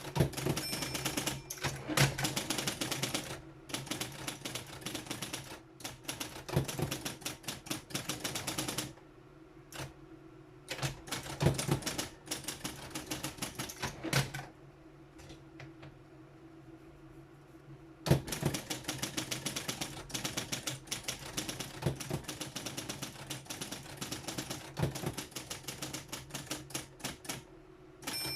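Triumph-Adler 131D electric typewriter typing in quick runs of keystrokes, with its motor humming steadily underneath. About halfway through the typing stops for a few seconds and only the motor hum is heard, then a burst of keystrokes starts again.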